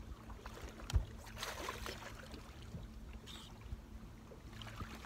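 Small fishing boat on the water: a steady low hum, a single thump about a second in, and a short hissing rush just after it.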